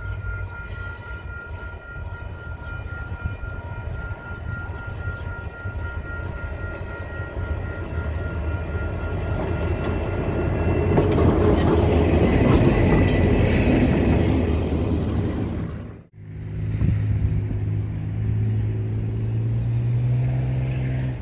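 Diesel-electric locomotive engine running as it approaches and passes close by, growing loudest about twelve seconds in. After a sudden cut, a diesel locomotive's engine drones on, its pitch rising slightly near the end.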